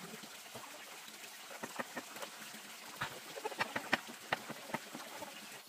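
Hands kneading and squeezing dark lumps through white powder in a plastic tray: a quiet run of irregular soft clicks and crackles, busiest about three to four seconds in.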